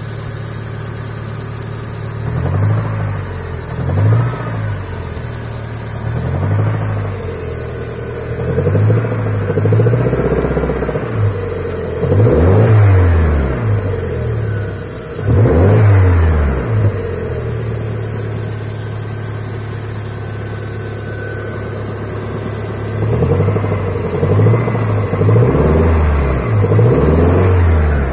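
Toyota Sera's 5E-FHE 1.5-litre inline-four engine idling and revved in repeated short blips, with a steady idle stretch in the middle; the engine has a knock.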